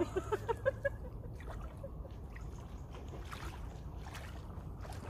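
Shallow lake water sloshing gently around the legs of two people wading in, over a steady low wind rumble on the microphone. In the first second there is a quick run of short high notes.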